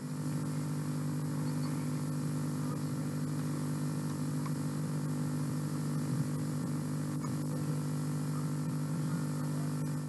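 Steady low electrical hum with tape hiss, the background noise of an old home-video tape recording. It runs unchanged, with no speech or other events over it.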